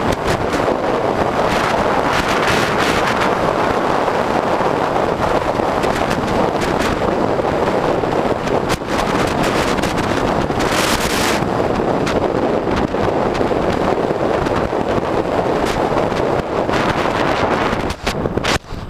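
Steady, loud wind noise buffeting the microphone of an electric bike riding at speed, covering other sound. It dips briefly near the end.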